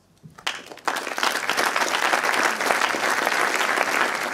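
An audience applauding: a few claps start about half a second in and quickly swell into steady, dense applause.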